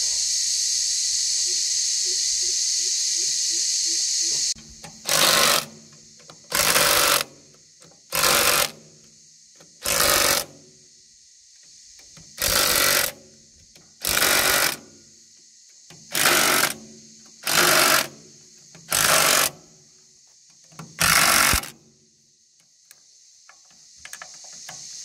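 A steady high insect buzz for the first four or five seconds. Then a cordless drill runs in ten short bursts, each under a second and spaced about a second and a half to two seconds apart, driving bolts back into a steel hydraulic tank's side cover.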